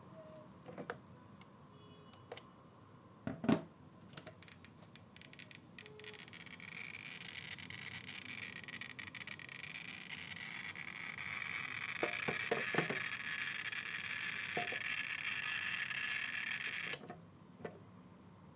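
RKSB-104 dosimeter, modified to click, starts clicking a few seconds in. The clicks grow denser and louder until they merge into a fast crackle, a very high count rate from a uranium source, then stop suddenly near the end. A few handling knocks come at the start and again later.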